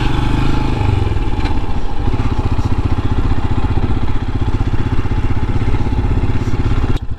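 Royal Enfield Himalayan's 411 cc single-cylinder engine running at low road speed, a steady beat of exhaust pulses; it briefly drops away near the end.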